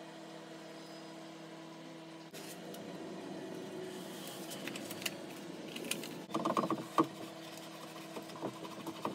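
Paper backing being peeled off a self-adhesive lining sheet: rustling and crackling, with the loudest crinkles a little past the middle as the sheet is handled and pressed into a wooden box, over a steady low hum.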